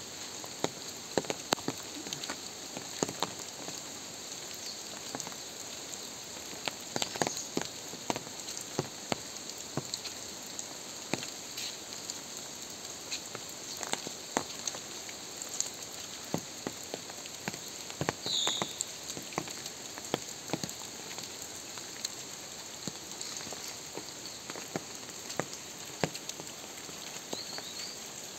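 Steady rain falling on leaves and a wet paved path, with irregular sharp taps of drops throughout. A brief high chirp sounds about eighteen seconds in.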